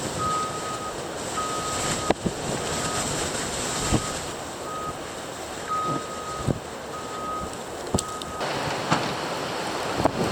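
A vehicle's backup alarm beeping at one steady pitch, about once every three-quarters of a second, over wind noise. The beeps stop near the end.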